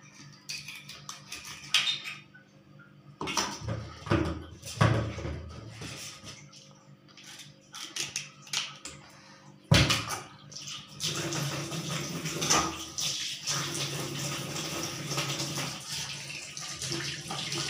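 Catfish being handled in a metal kitchen sink: scattered knocks and scrapes, then a sharp knock about ten seconds in. After that a water tap runs steadily into the sink as the fish are rinsed.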